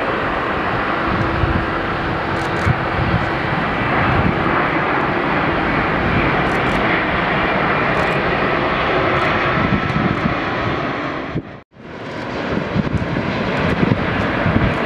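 Boeing 787 Dreamliner airliner passing low on final approach with its landing gear down: a steady rushing jet noise from its twin turbofans and airframe. The sound cuts out for a split second near the end.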